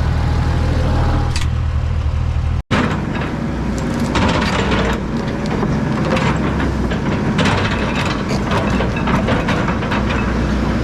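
Diesel heavy equipment running steadily. About two and a half seconds in, the sound changes to the machine working through rocky ground, with its engine under load and a clatter of knocks and cracking rock.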